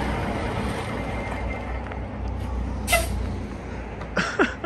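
1992 Freightliner with a Caterpillar 3406 diesel idling with a steady low rumble. About three seconds in comes one short, sharp hiss of air, as of the air brakes being set. A few quick clicks follow near the end, as the cab door is unlatched.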